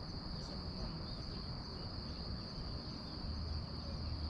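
Crickets chirring in one steady, unbroken high-pitched drone over a low background rumble.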